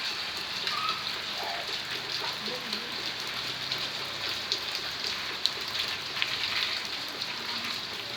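Steady rain falling and pattering on surfaces, with scattered sharper drop ticks.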